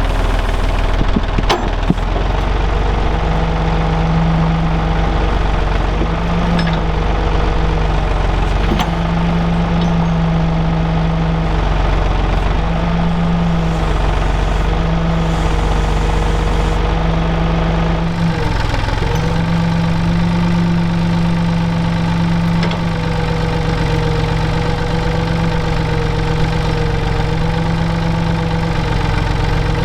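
Small earth-moving machine's engine running under changing load while it digs and moves dirt, its note swelling and easing every second or two, with a few sharp knocks in the first couple of seconds. The engine note drops about 18 seconds in and then runs more evenly.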